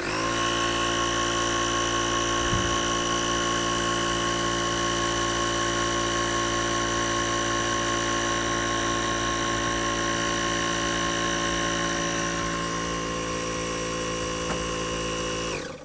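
Small portable air compressor running steadily with an even motor hum, pumping a basketball up to about 9 psi; it starts suddenly and shuts off sharply near the end.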